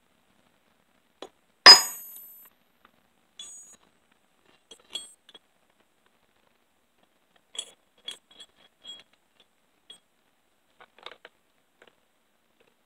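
One sharp metal-on-metal clank with a brief ring about two seconds in, then scattered light metallic clicks and taps as small steel chainsaw-chain parts and hand tools are handled.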